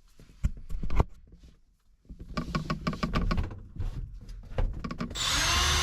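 A couple of sharp knocks, then a stretch of clattering as a cardboard trunk divider panel is handled and pressed into place; near the end a power drill starts up, driving a self-tapping screw into it.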